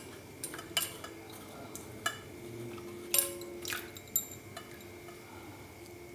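Scattered light clinks and knocks, about half a dozen, some with a brief ring, as raw potato sticks and fingers strike the rims of a steel bowl and a glass bowl while the sticks are lifted out of their soaking water.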